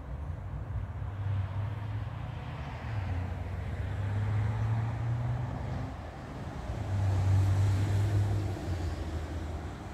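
Low rumble of distant vehicle traffic, swelling twice.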